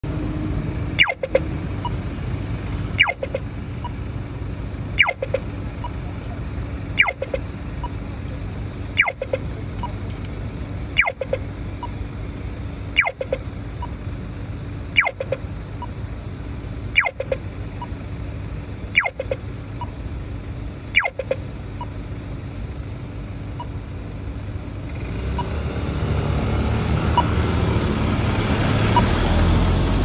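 Pedestrian crossing push button's audible signal: a short sharp chirp repeating evenly about every two seconds, eleven times, then stopping about two-thirds of the way through. Steady road traffic runs underneath and swells near the end as a vehicle passes.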